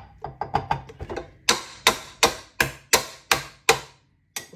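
A utensil knocked against the stainless steel bowl and paddle of a stand mixer to shake off cake batter: a few light clicks, then about seven sharp taps at roughly three a second. The mixer motor is off.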